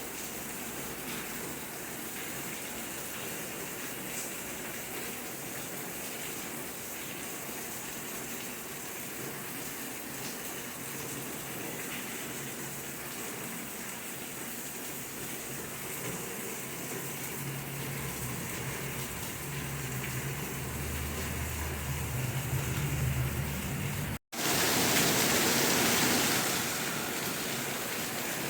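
Steady rain falling. In the second half a low rumble grows under it, then the sound cuts out abruptly for a split second about 24 seconds in and comes back as a louder rush of rain for a couple of seconds before settling again.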